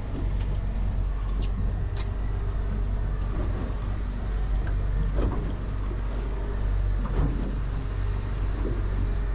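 Boat motor running steadily as a low drone, with a couple of sharp clicks about one and a half and two seconds in.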